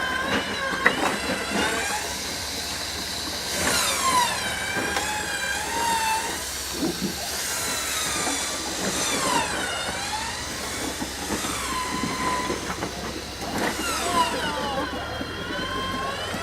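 Electric winch on a Jeep TJ pulling in its line under heavy load as it drags the Jeep over rocks, giving a high squealing whine that keeps rising and falling in pitch, with a few knocks.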